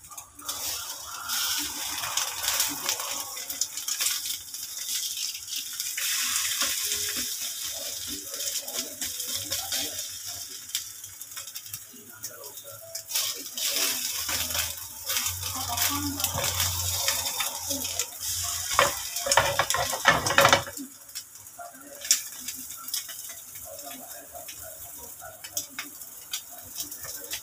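Oil sizzling in a nonstick frying pan around a sardine-and-egg patty, with the clicks and scrapes of a wooden spatula turning it. A louder rush with a low hum stops abruptly about twenty seconds in.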